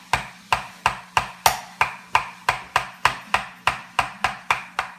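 Hammer striking a nail into a wooden birdhouse: a steady run of quick taps, about three a second.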